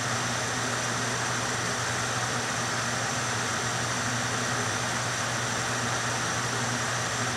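Electric blower running steadily, pushing air through a foil dryer duct: an even rush of air over a constant low hum.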